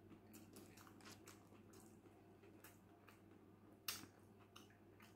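Faint chewing of a mouthful of Big Mac: soft, wet mouth clicks and squishes scattered through, with one sharper click about four seconds in.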